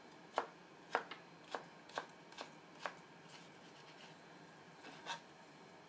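Kitchen knife chopping red onion on a cutting board: sharp knocks about two a second for the first three seconds, a pause, then one more knock about five seconds in.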